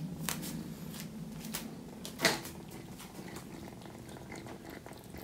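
Kitten purring steadily, strongest at the start and fainter after about a second. A few light clicks and one sharper knock come about two seconds in.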